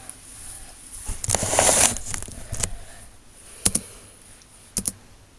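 A rustle close to the microphone, then a single sharp click and, about a second later, a quick double click.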